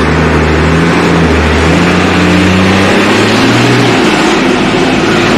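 Loud truck engine running close by, its speed rising and falling a few times.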